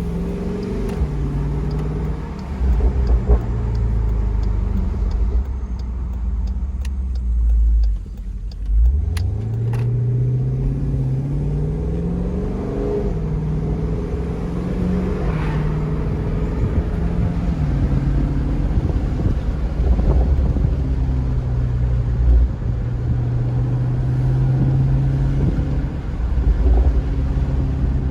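2018 Jeep Grand Cherokee SRT's 6.4-litre V8 running while the vehicle is driven, its pitch climbing under acceleration and dropping back at each gear change, over a heavy low rumble. About eight seconds in the sound briefly drops away, then the engine pitch rises in one long climb.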